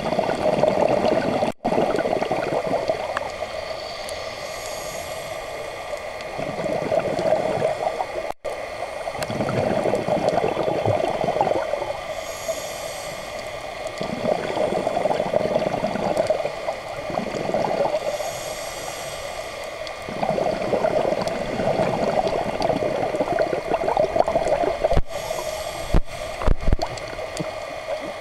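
Scuba diver breathing through a regulator underwater: a short hiss of inhaled air every six to eight seconds, each followed by a longer gurgle of exhaled bubbles.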